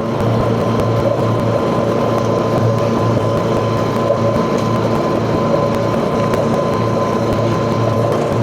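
Grasshopper front-mount mower running steadily under load, a continuous engine hum with a thin steady whine above it.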